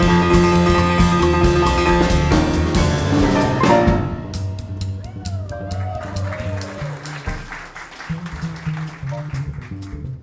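Live jazz trio of grand piano, upright bass and drum kit. The piano plays a dense, loud passage that ends about four seconds in, and the music drops back to quieter bass notes and drums.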